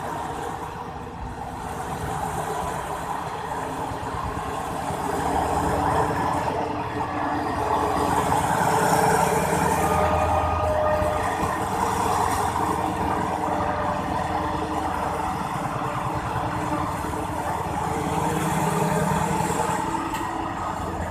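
Alsthom ALS diesel-electric locomotive's MTU diesel engine running under load as it pulls a freight train away from a stop. The drone swells about a third of the way in and again near the end as the engine works harder.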